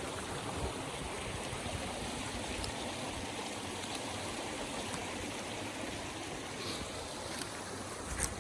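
Stream water running steadily over rocks. There is one sharp click near the end.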